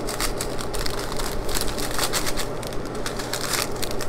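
Small clear plastic zip bags of diamond-painting rhinestones being handled and flattened: the plastic crinkles and the loose rhinestones shift and click inside, in quick irregular bursts.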